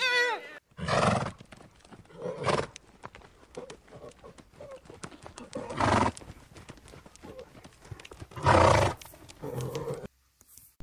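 A horse making several short, breathy sounds a second or more apart, with faint clicks between them.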